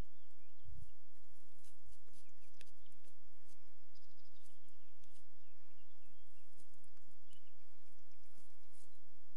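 Outdoor ambience: faint, scattered bird chirps over a steady low rumble, with light clicks here and there and a soft low bump about a second in.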